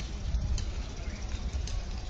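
Outdoor street ambience: a steady low rumble, with a few faint clicks and distant voices.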